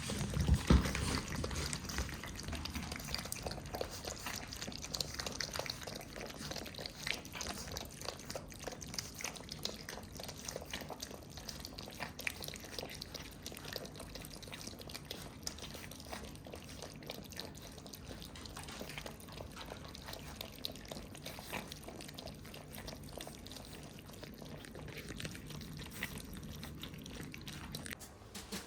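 Shiba Inu puppies playing: a steady scatter of small clicks, taps and scuffling, with a louder knock about a second in.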